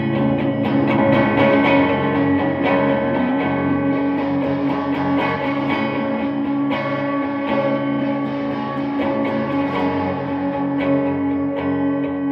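Electric guitar played through effects pedals: sustained, ringing picked notes and chords, one after another.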